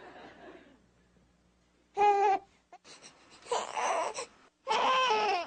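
Infant crying in short, separate wails: a brief cry about two seconds in, then two longer cries near the end, the last one held and falling slightly in pitch.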